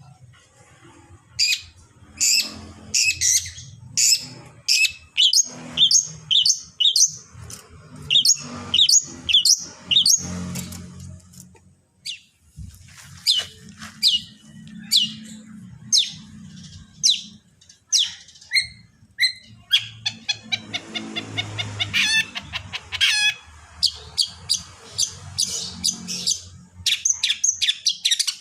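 Long-tailed shrike (cendet) singing a fast, varied string of sharp high chirps and whistles, with a burst of rapid rattling notes about two-thirds of the way through, over a low hum.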